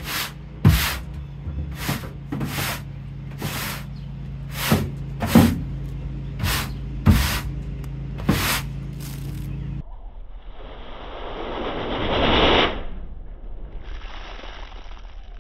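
Stiff push broom scrubbing a wet metal cargo floor: a string of sharp scrapes about once a second over a steady hum that cuts off about ten seconds in, followed by a rushing hiss that swells and fades.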